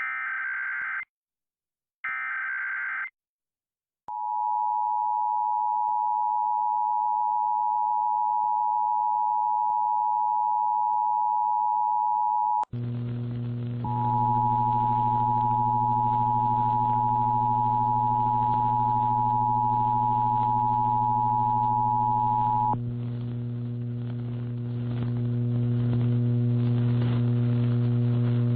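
Emergency Alert System test on air. Two harsh data bursts of the digital header come first, about a second each. They are followed by the steady two-tone attention signal, 853 and 960 Hz sounding together, for about eight seconds. About thirteen seconds in, a loud hum comes in with a hiss. The attention signal sounds again through the hum for about nine seconds, and then the hum goes on alone.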